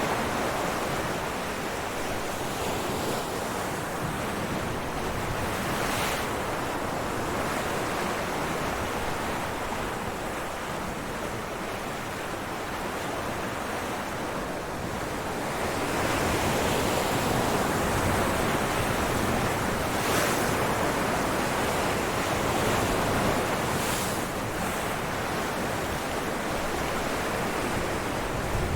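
Ocean waves breaking on rocks: a continuous rush of surf that swells and eases over several seconds, with brief hissing splashes as individual waves break.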